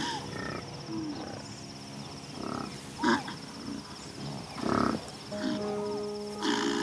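Wild animals growling and snarling in short bursts, about five times, over background music, with a steady insect trill.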